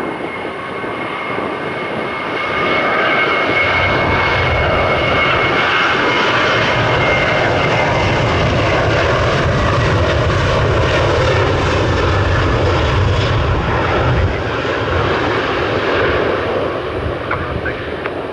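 Jet airliner's engines as it passes: a high whine at first, then a loud engine rumble that builds from about three seconds in, holds, and eases off near the end.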